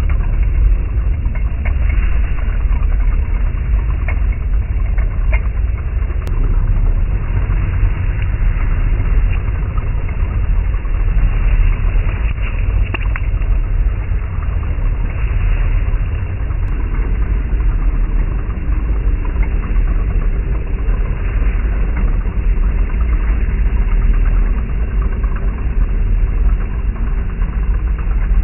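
Heng Long M1A2 Abrams 1/16 RC tank driving through dry grass: a steady low rumble with light, irregular clicking from its running gear.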